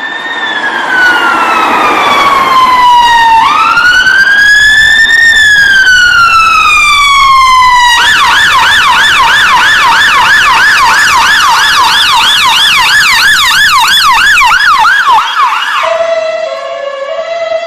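British ambulance electronic siren cycling through its modes: a slow wail falling, rising and falling again, then a rapid yelp of quick up-and-down sweeps from about eight seconds in, switching near the end to the alternating two-tone hi-lo.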